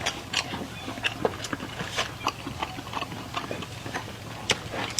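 Close-up chewing of meat sausage and pasta: irregular wet clicks and smacks, several a second.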